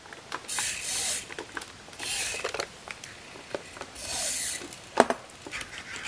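Small motors of an animatronic chimpanzee head whirring in three short bursts as it moves its face, with scattered light clicks and a sharper click about five seconds in.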